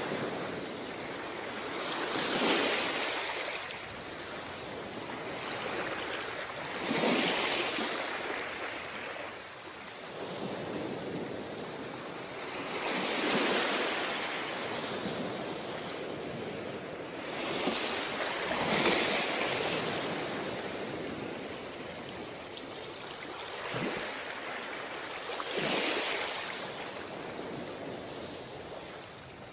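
Ocean surf breaking on a beach: a steady rush of water that swells with each wave, five or six surges spaced about five to six seconds apart.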